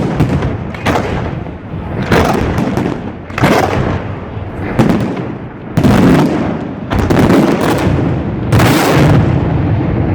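Fireworks display: a rapid run of loud bangs from fireworks shells, about one a second, each followed by a rolling echo.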